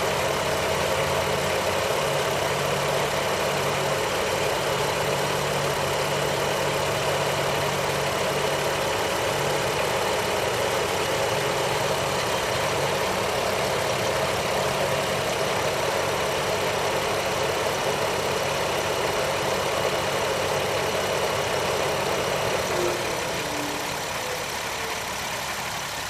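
A 2007 Jeep Wrangler Unlimited X's 3.8-litre V6 idling steadily, with the radiator's cooling fan running. The sound gets slightly quieter near the end.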